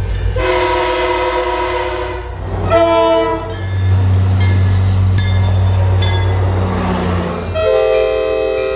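Diesel commuter-train locomotive horns blowing in three separate blasts, the middle one short. Between the second and third blasts a passing train's steady low engine and rail rumble.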